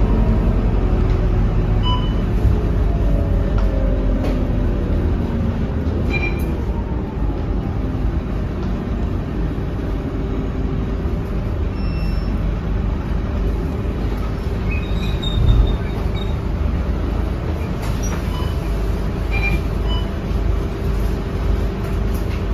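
Cabin sound of a Scania K230UB bus with a five-cylinder diesel engine: the engine note falls as the bus slows for a stop, then the engine idles steadily while it stands. A few short high beeps and one dull thump about two-thirds of the way through.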